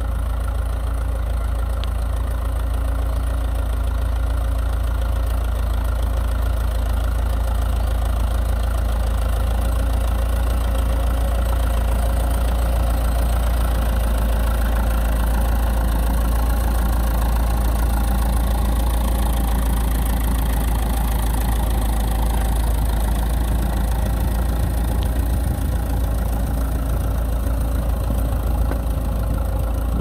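Massey Ferguson 165 tractor's four-cylinder engine running steadily under load while pulling a reversible plough through the soil.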